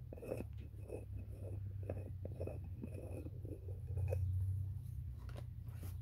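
Quail pecking and scratching in loose hay and seed: a run of soft crunchy taps and rustles, about three or four a second, over a steady low hum that grows a little louder about four seconds in.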